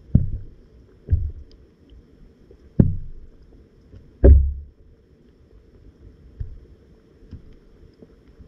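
Dull, muffled thumps heard through an underwater camera's housing, four in the first half, the last the loudest, over a steady low water rumble.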